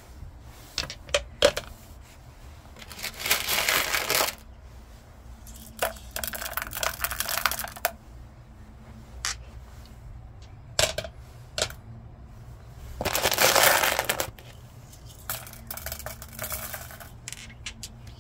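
Agate stones and white tumbling-media pellets clicking and rattling against each other as they are dropped and stirred by hand inside a rubber rock-tumbler barrel. There are scattered single clicks and a few longer rattling spells.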